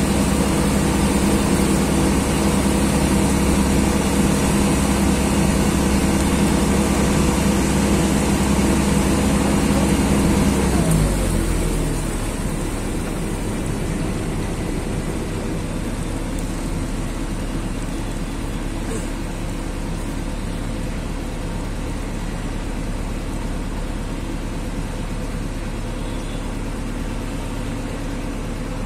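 Engine of a small passenger engine boat running steadily under way. About eleven seconds in, it is throttled back and its pitch drops to a quieter, lower running, as the boat slows to come alongside a landing stage.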